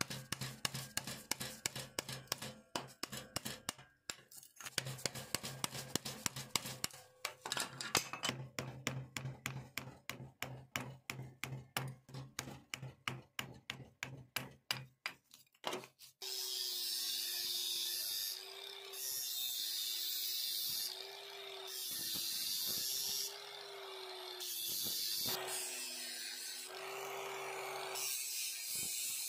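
A sharpened blade shaving a wooden block clamped in a vise, a quick run of short scraping strokes with a couple of brief pauses. About 16 seconds in, a small electric sander with a round pad starts and runs against the wood, its level rising and falling as the block is pressed on and eased off.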